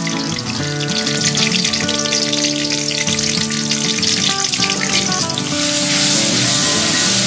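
Wet blended spice paste of candlenuts, shallots and garlic sizzling as it hits hot oil in a wok. The frying hiss grows louder about five and a half seconds in as the paste is stirred. Background music plays throughout.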